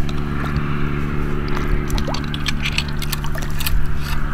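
Shallow marsh water sloshing and dripping as a muskrat trap's chain is pulled up out of it by hand, with scattered small sharp clicks and splashes, busiest in the second half, over a steady low hum.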